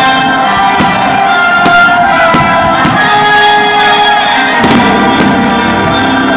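Music with long held instrumental notes, the loudest sound, while aerial fireworks shells burst with several sharp bangs.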